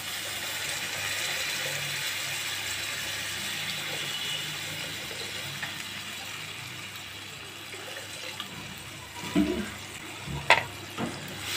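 Water poured in a stream into a wok of cooking onion-tomato masala, a steady rush that fades away over the first several seconds as the pan fills. A few short knocks near the end.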